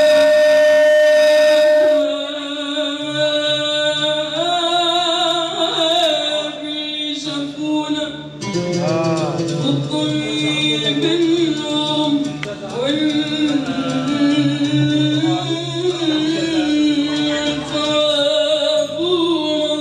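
A woman singing an Arabic song into a handheld microphone, unaccompanied by words of speech. She opens on a long held note for about two seconds, then sings a wavering, ornamented melody over a low held note underneath.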